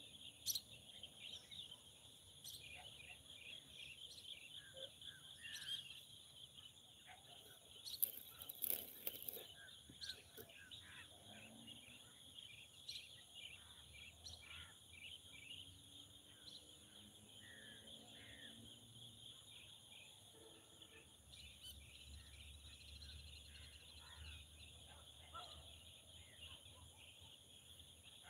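Faint outdoor ambience: a steady high insect trill with scattered short bird chirps over it. A brief cluster of sharp clicks comes about eight seconds in.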